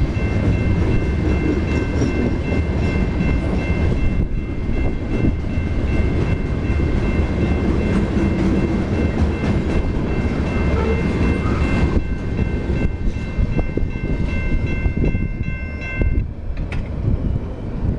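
Freight train of tank cars and covered hoppers rolling past close by: a low rumble with wheel clatter over the rail joints, and a steady high ringing tone above it. The ringing stops suddenly about sixteen seconds in as the last car goes by, and the rumble fades.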